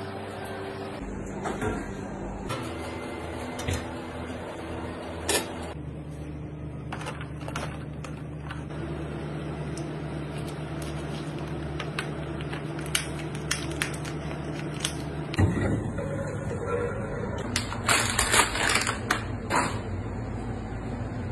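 Kitchen handling sounds: scattered clicks and knocks over a steady machine hum, with a cluster of rustling about three-quarters of the way through. The hum changes abruptly several times.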